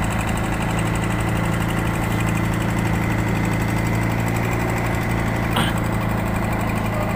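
Fishing boat's engine running steadily under way, a low, even drone. One brief knock about two-thirds of the way in.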